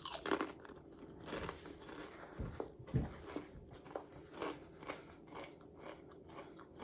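Close-miked biting and chewing of breaded fried pickles: a series of short, crisp crunches.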